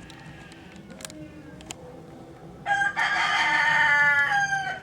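A rooster crows once, a single call of about two seconds starting past the middle, loud and dropping in pitch at the end.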